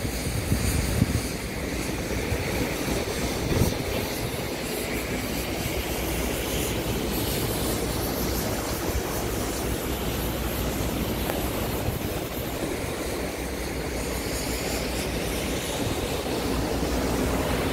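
A steady low rumble of machinery with an even noise over it, without distinct knocks or changes.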